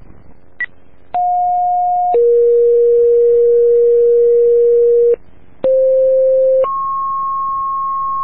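Fire dispatch radio alert tones: after a short high beep, two two-tone sequential pages sound, each a steady one-second tone followed by a longer steady tone at a different pitch. The first pair steps down from a middle pitch to a lower one held about three seconds, and the second steps up from low to a clearly higher tone. These tones set off the station alerts ahead of a voice dispatch to a structure fire.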